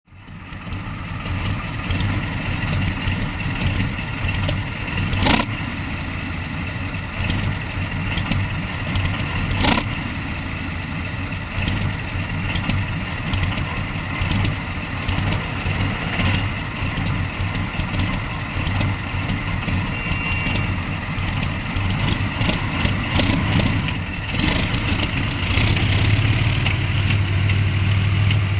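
T-34-85 tank's V-2 V12 diesel engine running, with sharp metallic clanks about five and ten seconds in. Near the end a deeper, steady drone comes up and the sound grows a little louder.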